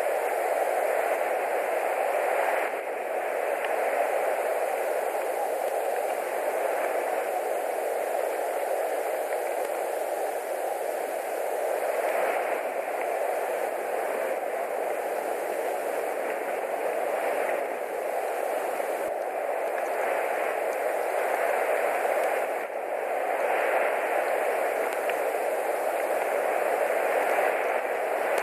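Steady rushing noise on the nest camera's microphone, even and without any calls, briefly dipping twice.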